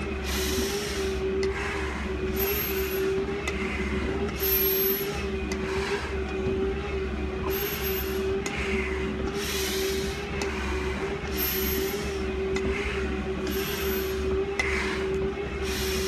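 A firefighter breathing hard through a full-face SCBA mask while climbing stairs, a hissing breath every one to two seconds, over a steady hum.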